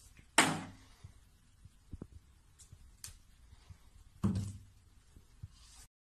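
Two plastic toiletry bottles pushed off a shelf by a cat, each landing with a sharp thud: one about half a second in, the other about four seconds in, with a few faint taps between.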